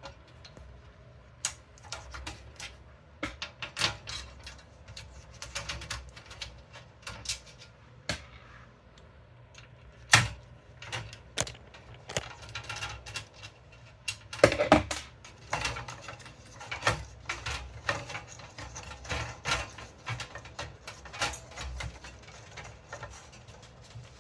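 Irregular clicking, tapping and light clattering of computer parts and cables being handled and fitted inside a tower PC case, with two louder knocks, one about ten seconds in and one near the middle.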